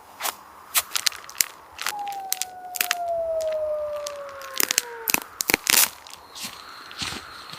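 Repeated crunches and sharp snaps of handling, with one drawn-out squeal that falls slowly in pitch from about two to five seconds in.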